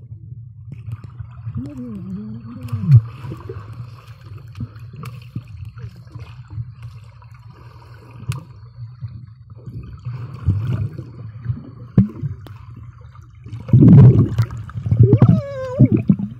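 Underwater sound picked up by a camera sealed in a homemade waterproof housing in a swimming pool: a steady low muffled rumble with gurgling, bubbling and small clicks. A muffled voice glides up and down briefly about two seconds in and comes back louder near the end.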